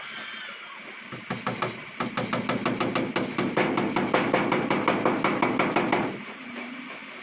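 Hammer blows on wooden framing as a wooden pigeon box is fixed in place: a few single strikes, then a fast, even run of about six blows a second for some four seconds that stops abruptly.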